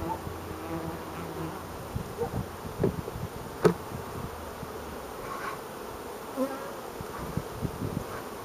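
Carniolan honeybees buzzing as they fly close past the hives, short buzzes one after another at varying pitches. A single sharp tap sounds a little before the middle.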